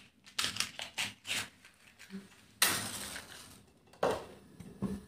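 A matchbox being handled with a few small clicks and scrapes, then a match struck about two and a half seconds in, flaring with a short hiss that fades. A second short scrape or burst about four seconds in as the flame is brought to the portable LPG stove's burner to light it.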